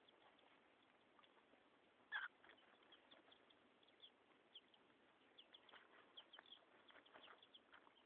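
Ameraucana chicks peeping faintly, with short high chirps repeating irregularly and one louder call about two seconds in.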